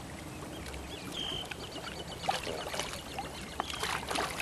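Lake water trickling and lapping around a giant Siamese carp resting in a landing net, with a few small splashes.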